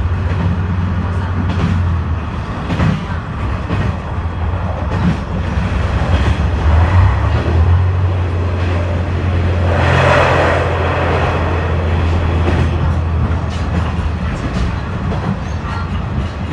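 KiHa 126 series diesel railcar running at speed, heard from inside the car: a steady low engine drone under wheel and rail noise. Around the middle a louder rush swells up as the train runs through a tunnel, and the low drone eases near the end.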